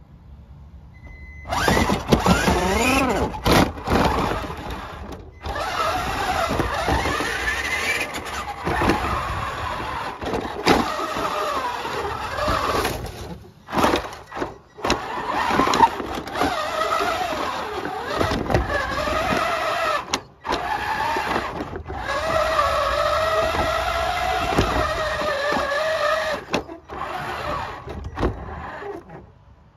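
Electric motors and geartrain of a radio-controlled Tamiya Clodbuster monster truck whining, the pitch rising and falling with the throttle. The sound starts suddenly and cuts out briefly several times.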